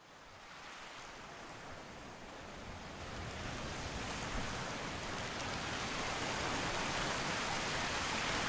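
Steady, even rushing noise, like rain or running water, that fades in and slowly grows louder.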